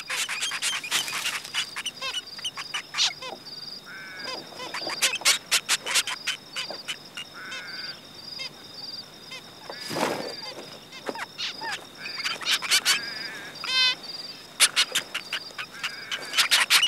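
Zebra finches calling at the nest: a rapid scatter of short, sharp chirps and a few longer nasal calls that rise and fall in pitch. A thin, steady, high-pitched pulsing tone runs underneath.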